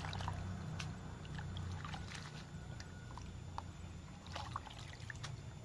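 Hands squeezing and rinsing shredded banana blossom in a basin of water: irregular small splashes and drips, over a steady low hum.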